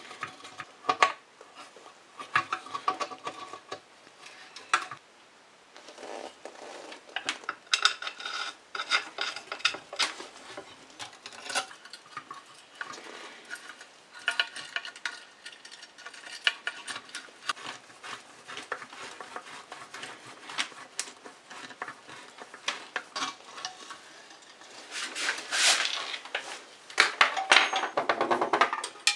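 Metal clinks, taps and light scraping as the sheet-steel parts of an antique sandwich toaster are handled and fitted together, with a busier, louder spell of clattering near the end.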